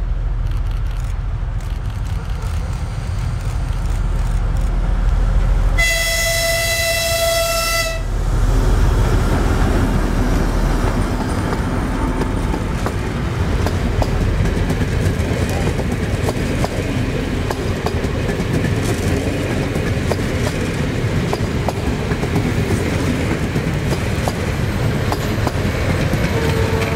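A T679.1 'Sergej' diesel locomotive passes close by hauling coaches. Its horn sounds for about two seconds, about six seconds in. Then its two-stroke diesel engine runs and the wheels clatter over the rail joints as the coaches go by. Near the end the T478.1 'Bardotka' diesel at the rear of the train starts to sound its horn.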